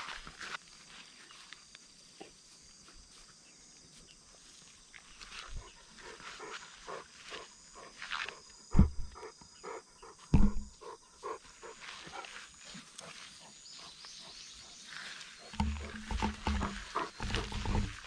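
Bernese Mountain Dog panting in quick, rhythmic breaths. Two loud thumps about a second and a half apart come roughly halfway through, and there is a low rumble near the end.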